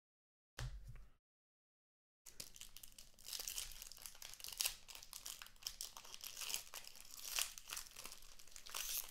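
Silver foil card-pack wrappers crinkling and tearing as hockey card packs are opened by hand, with cards rustling. The crackling starts about two seconds in, after a short silence, and runs on with a few louder crinkles.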